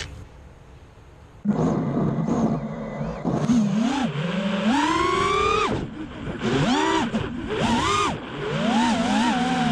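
Racing quadcopter's brushless motors spinning up about a second and a half in, then a whine that swoops up and down in pitch again and again as the throttle is worked in flight.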